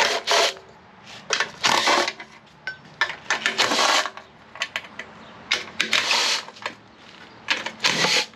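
Cordless impact driver with a socket hammering out valve cover bolts in about five short rattling bursts, with pauses between them as it moves from bolt to bolt.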